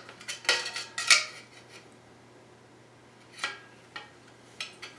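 Magpul MOE polymer handguard half clicking and knocking against the AR-15 as it is worked into place, a handful of sharp clacks with the loudest about a second in.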